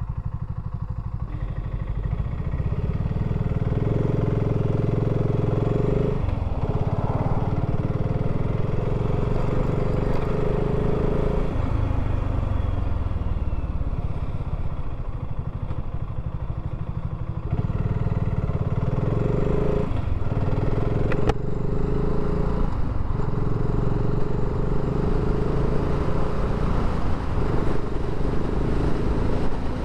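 BSA Gold Star 650 motorcycle running under the rider, pulling away and accelerating through the gears. The engine note dips briefly at gear changes about 6, 20 and 23 seconds in, and falls away when the throttle eases off around the middle.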